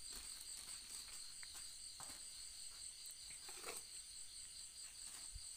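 Crickets chirring steadily at a high pitch, with a few faint rustles and knocks from sawdust-filled mushroom bags being handled.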